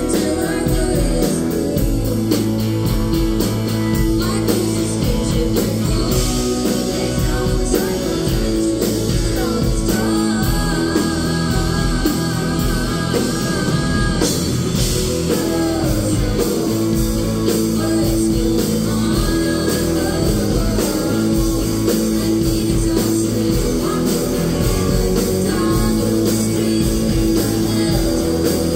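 Live indie rock band playing a song: electric guitars, bass guitar and drum kit, with female lead vocals singing over them.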